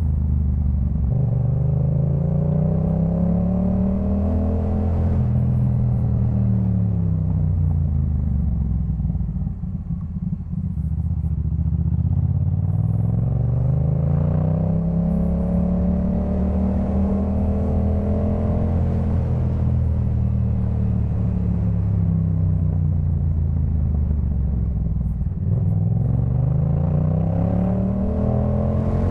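Yamaha MT-07's 689 cc parallel-twin engine breathing through a Jeskap K4 full aftermarket exhaust while the bike is ridden. The engine note climbs under throttle and falls back several times, with a short drop-off about ten seconds in.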